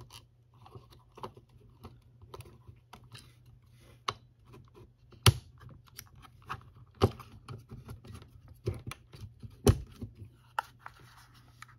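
Irregular clicks and knocks of a battery pack's case parts being handled and pushed into place, with three sharper knocks about 5, 7 and nearly 10 seconds in.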